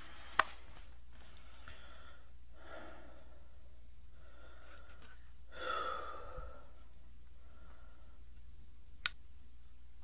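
A person on the toilet breathing and sighing: faint strained exhales, with one louder sigh about halfway through. A sharp click comes near the start and another near the end, over a steady low hum.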